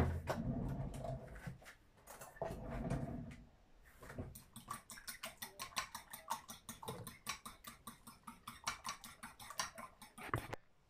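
A utensil beating raw eggs in a ceramic bowl: a fast, even run of light clicks against the bowl, about six a second, over the second half. A few low knocks and handling sounds come first.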